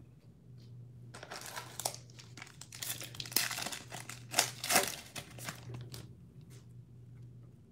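Panini Prizm trading card pack wrapper being crinkled and torn open by hand, in a run of crackling bursts that are loudest in the middle and die down near the end.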